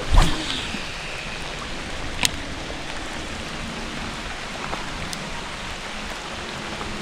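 Steady rushing hiss of water around the microphone, with a low thump just after the start and a short sharp click a little after two seconds in.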